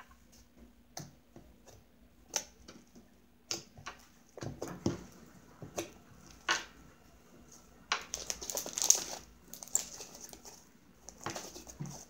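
Fluffy glitter slime kneaded, poked and stretched by hand: scattered small wet clicks and squishes, with a busier run of them about eight seconds in.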